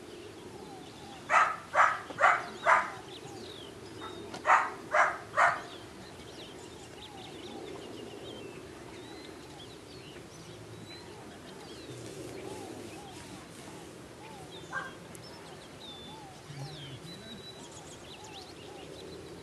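An animal calling in short, loud calls about half a second apart: four, a pause, then three more. Small birds chirp throughout.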